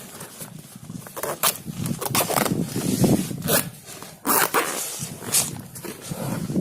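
Irregular rustling and knocking as a car's tyre-changing tool kit and its plastic bag are handled and stowed away.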